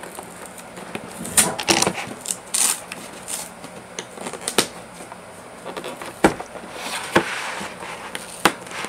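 Cardboard toy box being opened by hand: scattered clicks, taps and knocks of the box and its flaps being pulled and handled, with a short rustling scrape of cardboard about seven seconds in.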